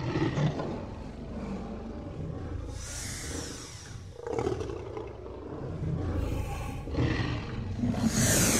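Tyrannosaurus rex roar sound effect: a low, rumbling growl that starts suddenly and swells into louder, breathy roars about three seconds in and again near the end.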